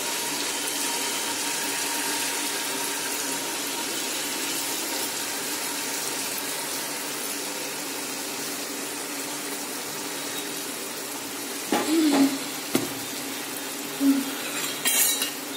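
Butterscotch syrup sizzling in a steady hiss as it is poured over popcorn in a hot kadai, slowly dying down. A few short louder sounds break in during the last few seconds.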